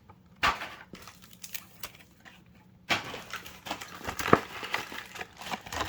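Foil booster-pack wrappers crinkling and rustling as packs are handled, in irregular short crackles that get busier about three seconds in, with a sharper crackle a little after four seconds.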